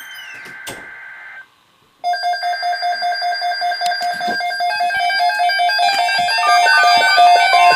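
Emergency Alert System SAME header: a harsh, buzzing digital data burst lasting about a second and a half, then a short silence, followed by electronic alert music of quickly repeating notes that grows louder. A steady single tone enters near the end.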